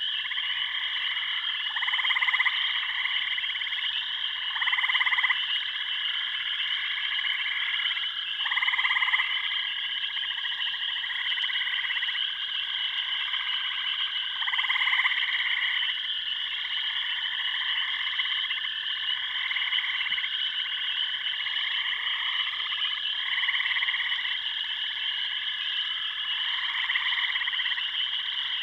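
Chorus of frogs calling: a steady high trill runs throughout, and lower calls about a second long overlap it every couple of seconds, some louder than others.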